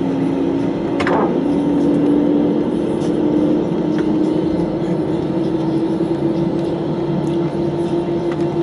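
Airbus A320 cabin noise with the jet engines running: a loud, steady rumble with a tone that climbs slowly in pitch as the engines spool up. There is a short swish about a second in.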